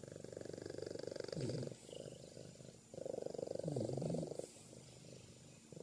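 Rasping rumble of a resting pet, pulsing in time with its breathing: a louder stretch about every three seconds, each ending in a short falling whine.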